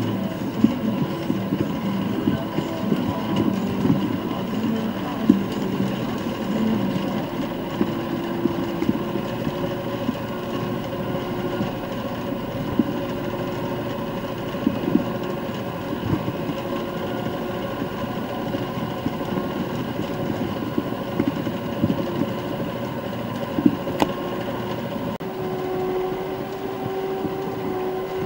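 Erkunt Nimet 70e tractor engine running steadily under load, heard from inside the cab, a constant drone over a rough rattle. A few short knocks and clunks come through, about a second in, around four and five seconds, and twice close together near the end.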